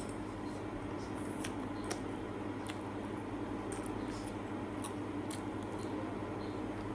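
Eating sounds: faint chewing and small, scattered clicks of a fork against a bowl while someone eats noodles, over a steady low hum.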